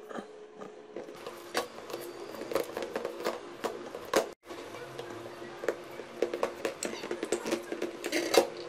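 Hands kneading soft flour-and-water dough in a steel bowl: irregular sticky slaps, pats and taps of dough and fingers against the metal, over a steady low hum.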